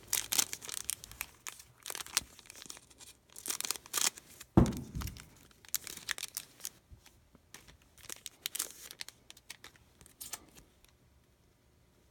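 Trading card pack wrappers being torn open by hand and crinkled, in irregular bursts of tearing and rustling. There is a low thud about four and a half seconds in, and it settles to quiet near the end.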